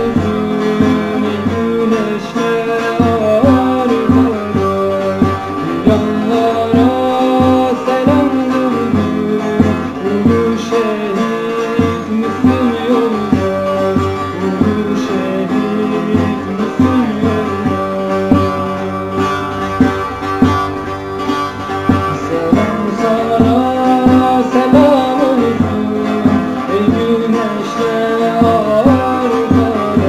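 A song: a voice singing a melody over plucked string instruments.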